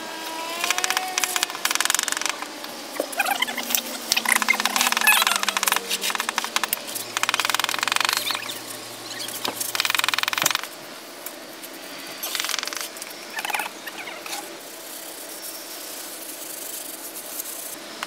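Bricklaying trowels scraping and scooping wet mortar in a mortar tray, with bricks set down and tapped into place. The scraping and clicking is busy and loud for the first ten seconds or so, then drops to softer scattered taps and scrapes.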